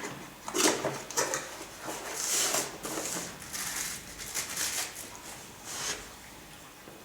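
Handling noise: irregular rustling scrapes and light knocks from a hand-held hair dryer being picked up and moved about, coming in short bursts that stop before the end.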